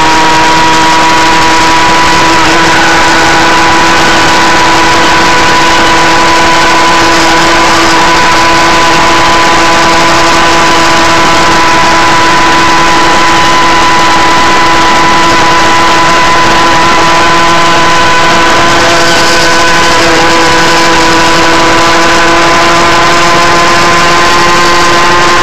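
Go-Ped GSR25 scooter's small two-stroke engine, fitted with a new exhaust pipe, running at a steady high pitch under throttle as the scooter cruises, with a rush of air and road noise beneath it. The note rises slightly in the first couple of seconds, then holds level.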